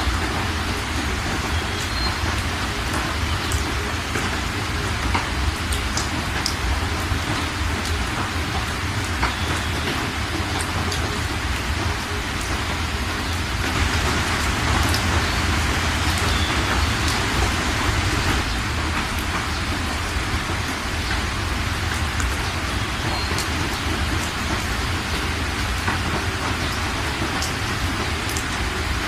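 Heavy rain pouring steadily, with scattered sharp drips striking nearby surfaces. It grows heavier for a few seconds about halfway through.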